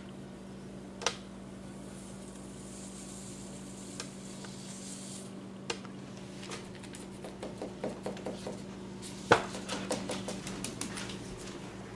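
A fork scraping and tapping against a nonstick skillet as a hot caramelized sugar, garlic and ginger mixture is scraped out: a few separate clicks at first, then a quick run of taps and knocks in the second half, the loudest about nine seconds in. A steady low hum runs underneath.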